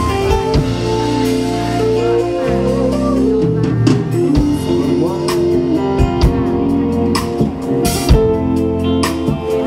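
A band playing an instrumental passage: a drum kit keeping time under sustained bass and guitar notes.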